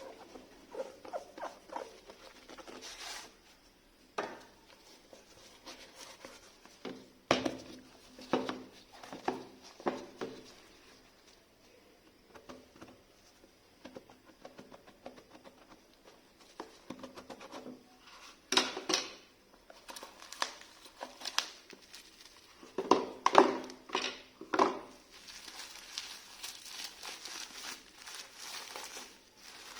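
Hands handling a watch box and its packaging: scattered taps, clicks and light knocks, with clusters of sharper clicks and a little rustling.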